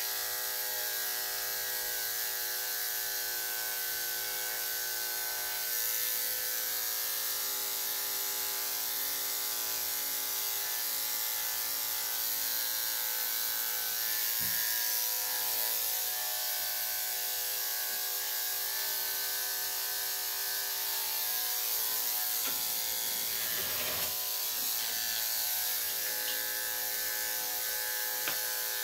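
Corded electric dog-grooming clippers running steadily with a constant pitched hum, the blade being run through a small dog's coat in a final trim.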